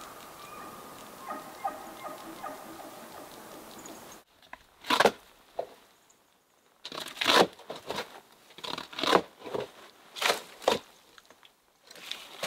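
Irregular crunching and crackling of dry brush and twigs, in sharp separate bursts. Before them, for about four seconds, there is a steady hiss with a faint whistle-like tone that cuts off suddenly.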